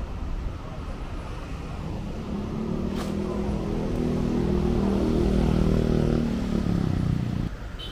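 A motor vehicle's engine running close by, its hum building over a few seconds and then stopping abruptly near the end, over steady street noise. A single sharp click about three seconds in.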